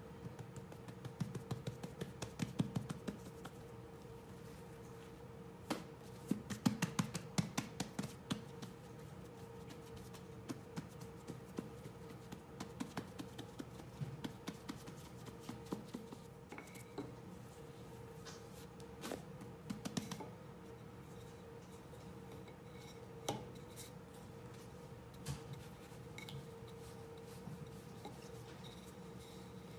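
Hands patting and pressing bread dough flat on a granite countertop: scattered soft pats and small taps in irregular clusters, over a faint steady hum.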